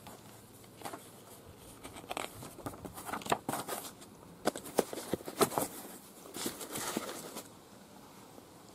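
Paper rustling and crinkling as the pages of a printed manual are handled and turned, in a string of irregular rustles and taps that stop about a second before the end.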